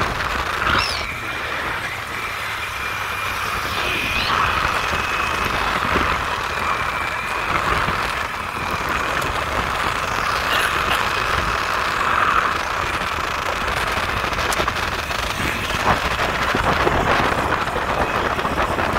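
Riding along a road on a motorbike: engine running with wind rushing over the microphone, and a thin high whine over it for much of the time.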